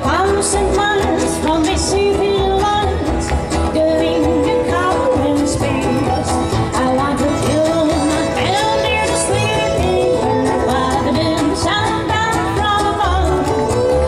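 Live country band music: a woman singing at the microphone over an upright double bass, a fiddle and a small acoustic guitar that she strums, with a steady beat.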